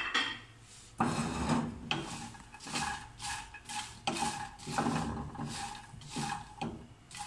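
A wooden spatula stirs whole dried red chillies in a nonstick frying pan as they dry-roast, the pods scraping and rattling against the pan in repeated strokes about twice a second. The stirring starts about a second in, after a brief rattle right at the start.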